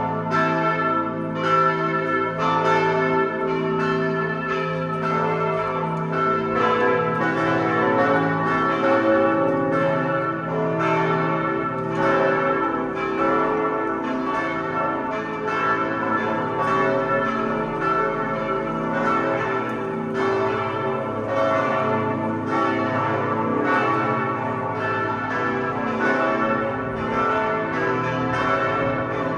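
Five church bells, tuned A, B, C-sharp, E and high A, ring together in a continuous peal. The strikes overlap irregularly over a sustained ringing hum. The largest, deepest bell weighs about 3.1 tonnes, and the four lower bells were cast by Pfundner in 1961.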